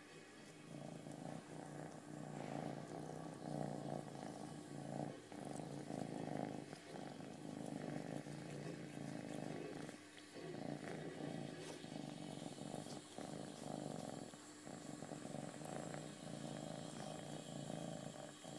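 Domestic tabby cat purring close up while it washes itself, the purr starting about a second in and pulsing with short breaks as it breathes.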